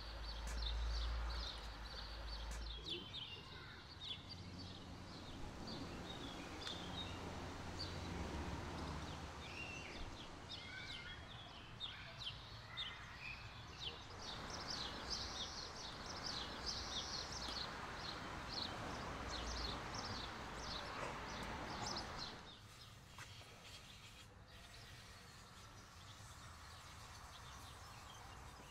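Outdoor ambience of small birds chirping over a steady background hiss, with a low rumble during the first few seconds. The ambience turns quieter a little past three-quarters of the way through.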